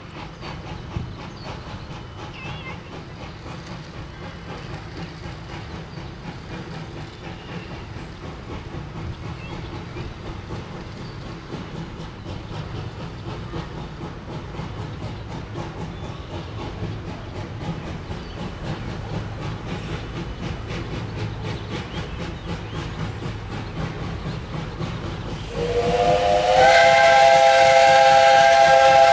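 Jeddo Coal 85, a 1927 Vulcan 0-4-0T saddle-tank steam locomotive, working hard with quick, even exhaust chuffs, about three a second, as it slips its driving wheels on a grade. About 25 seconds in, its steam whistle opens, rising in pitch into one loud, long blast.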